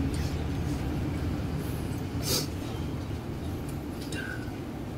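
Steady low rumble of room background noise, with a short hiss about two seconds in and a few faint clicks.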